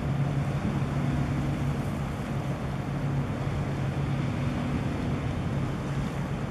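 Steady low drone of ship engines with a faint overtone, over a hiss of wind on the microphone.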